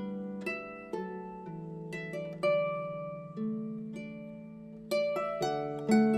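Background music: a slow melody of plucked string notes, each ringing out and fading.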